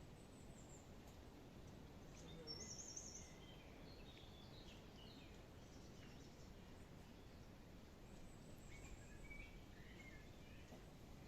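Faint woodland birdsong: scattered short high chirps over a low background hiss, with a brighter run of chirps about two and a half seconds in and more around nine seconds.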